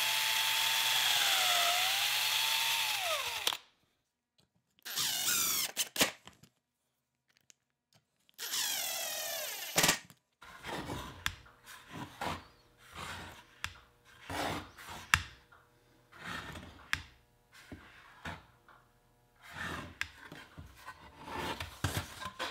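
Cordless drill-driver driving screws into a wooden board: the motor whines under load for about three and a half seconds, its pitch sagging and recovering, then runs twice more briefly. After about ten seconds come scattered clicks and knocks as the hinge and board are handled.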